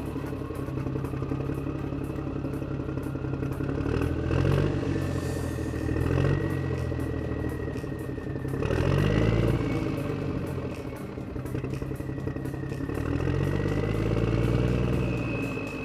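An engine-like motor sound that rises and falls in pitch several times, like revving, over a steady clattering rattle.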